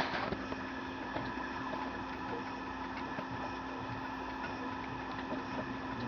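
Steady mechanical hum made of several constant tones, with a few faint ticks over it.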